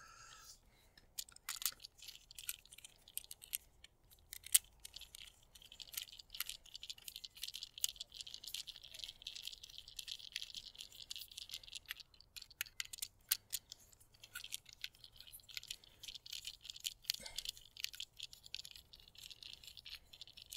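Faint, irregular small clicks and rattles from a circuit breaker and a torque screwdriver being handled while the breaker's terminal screw is snugged up by hand.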